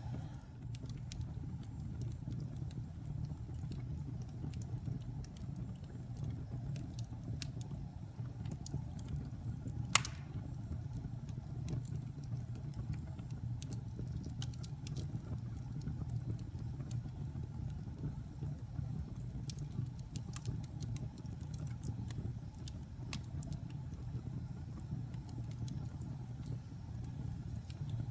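Wood fire crackling: a steady low rumble of burning with many small sharp crackles throughout and one loud pop about ten seconds in.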